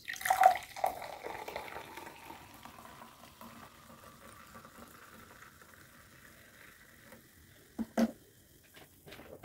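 Fanta poured into a glass: a splash as the pour starts, then the soda fizzing, the hiss slowly fading over several seconds. Two short knocks near the end.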